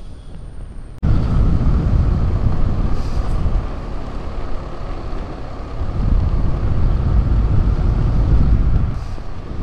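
Riding noise from a moving scooter: a loud, steady low rumble that comes in abruptly about a second in after a quieter stretch.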